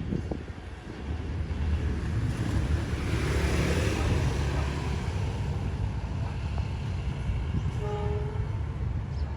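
D19E diesel-electric locomotive running past with a steady low rumble, the sound swelling as it draws closest about three to four seconds in. A brief high tone sounds near the end.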